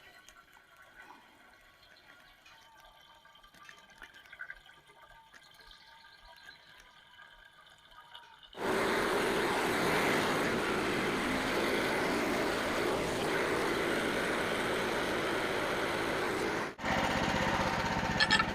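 Gasoline being poured into the sawmill's fuel tank: a steady rushing pour that starts suddenly about halfway through, with a brief break near the end. Before it there is only faint background.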